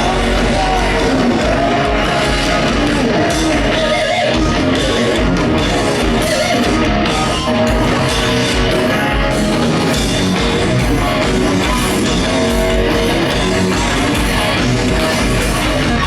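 A live heavy metal band playing loudly and without a break: distorted electric guitar and drums, with a singing voice.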